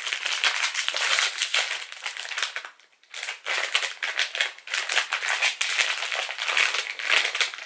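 A silver foil blind-box bag crinkling and crackling as it is torn open and worked by hand, with a brief pause about three seconds in.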